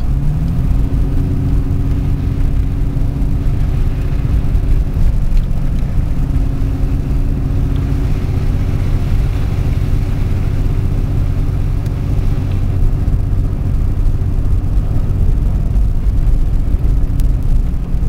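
Car engine and road noise heard from inside the cabin while driving, a steady low rumble. The engine note rises in the first second as the car speeds up, then holds steady.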